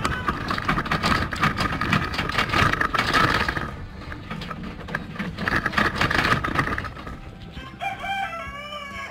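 Goats' hooves clatter quickly and irregularly on a steel bridge with an expanded-metal mesh deck as a small herd of Nigerian dwarf goats runs across it. Over the clatter a rooster crows twice, and a short wavering animal call follows near the end.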